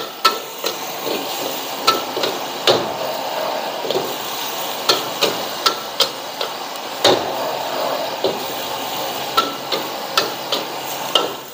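Metal wok spatula clanking and scraping against a carbon-steel wok while stir-frying yellow noodles, in irregular strikes about one or two a second, over a steady frying hiss as the noodles are fried dry.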